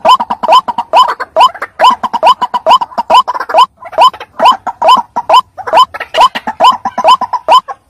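White-breasted waterhen calling: a loud, unbroken series of short croaking 'kruak' notes, each rising at the end, about two to three a second.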